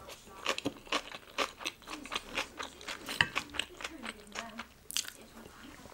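Close-miked chewing of food: many quick, irregular wet mouth clicks and small crunches.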